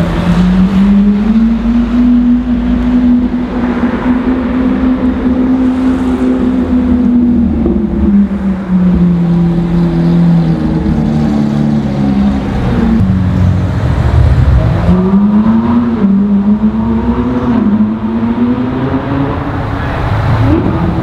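Supercar engine running loudly at steady high revs, then its pitch drops in several steps, then it revs up again about 15 seconds in, over a low traffic rumble.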